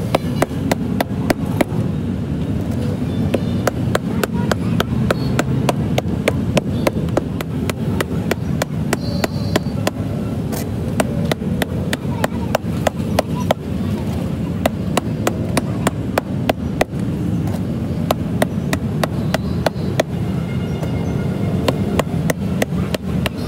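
Small hammer tapping repeatedly on the rubber of a cut tire, about three quick blows a second with only brief pauses, working along the seam that joins the tub's base to the tire wall. A steady low rumble runs underneath.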